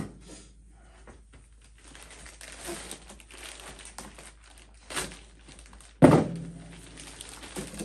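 Plastic poly mailer and plastic wrapping crinkling and rustling as a wrapped package is worked out of the bag, with a sharp thunk about six seconds in.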